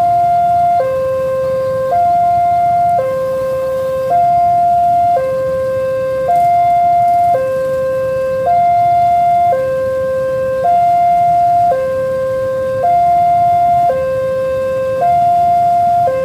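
Railway level-crossing warning alarm sounding a steady hi-lo two-tone pattern, each tone held about a second, warning of an approaching train.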